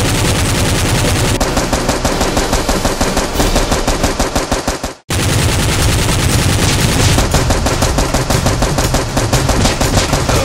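Dubbed machine-gun sound effects: rapid automatic fire that breaks off sharply for a moment about halfway through, then resumes.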